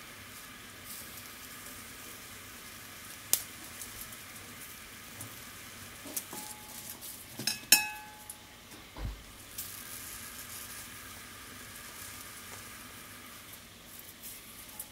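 Romaine lettuce sizzling on a wire-mesh grill over direct flame, a steady low hiss. Scattered clicks of metal mesh and tongs, then a cluster of clinks a little past halfway: the loudest is a sharp ringing clink as the wire grill knocks against a ceramic bowl, followed by a dull knock.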